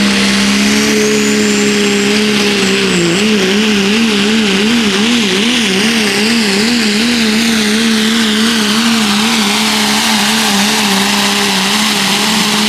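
Turbocharged diesel pulling truck's engine running hard at high rpm under the load of the sled, a loud steady drone with a high turbo whistle rising in the first couple of seconds. Through the middle the engine pitch wavers up and down about twice a second as the truck bounces and loads on the track.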